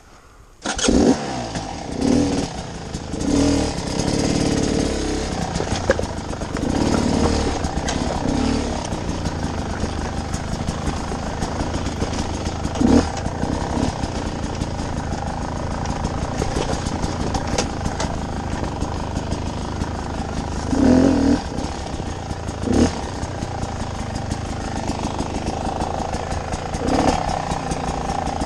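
Beta 300RR two-stroke dirt bike engine starting up about a second in, then revved in short throttle bursts and running as the bike is ridden slowly over rocks, with more bursts around the middle and near the end.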